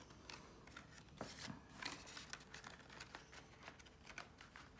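Faint rustling and soft clicks of paper being handled: prop banknotes and a budget envelope shuffled and moved, in scattered light strokes.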